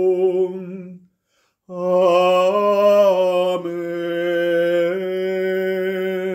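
A single voice singing Gregorian chant unaccompanied. It holds a note for about a second, breaks briefly for breath, then sings a long final phrase over a few steady notes: the closing "Amen".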